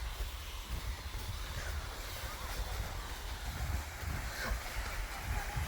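Wind buffeting the microphone in a low, gusty rumble, with a few faint short bird calls.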